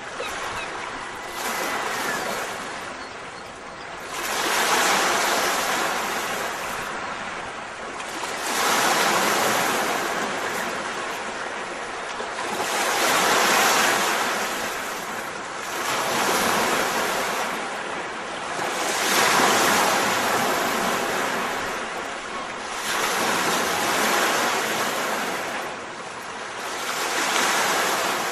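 Ocean surf: waves washing in, the noise swelling and fading in slow surges every few seconds.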